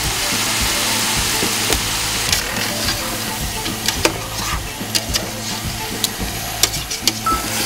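Chunks of potato and carrot sizzling as they are stir-fried in a large stainless stockpot, the hiss strongest as they first go in. Scattered clicks and scrapes of a utensil against the pot run through it.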